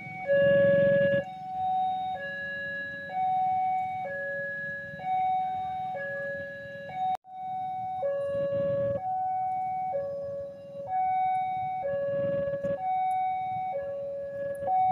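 Railway level crossing warning alarm sounding an electronic two-tone pattern, alternating between a lower and a higher tone about once a second. Bursts of low rumble from passing train or traffic lie beneath it.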